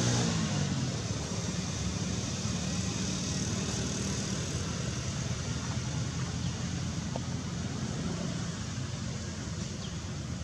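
Steady low rushing background noise that sinks slightly near the end, with a pitched hum dying away just after the start.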